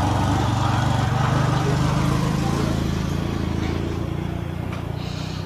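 A motor engine running with a steady low hum, easing off slightly toward the end.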